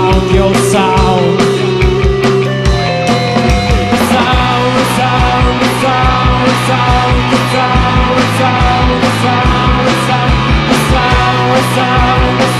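Gothic rock band playing live: a steady drum beat, with kick and cymbal hits about twice a second, under sustained chords.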